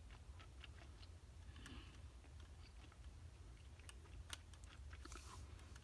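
Faint, irregular plastic clicks of a Rubik's cube's layers being turned by hand, over a low steady hum.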